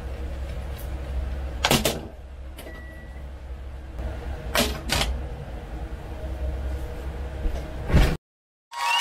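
Kitchen stovetop cooking sounds: a steady low hum with a few sharp clacks and knocks, once about two seconds in and twice around five seconds, and a short high beep near three seconds. The sound cuts off near the end.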